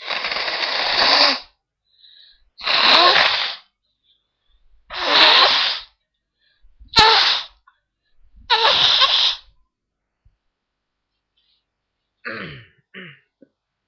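A person blowing their nose hard, five long blows in a row, each about a second of rough hissing. Near the end come two short voiced breaths with falling pitch.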